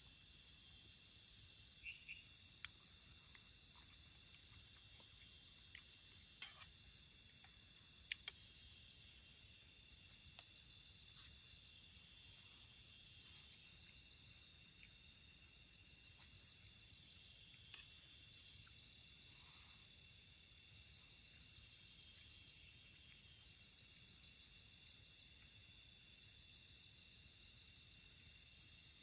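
Faint steady chirring of crickets in the night, with a few sharp clicks of a spoon on a plate, the loudest about six seconds in.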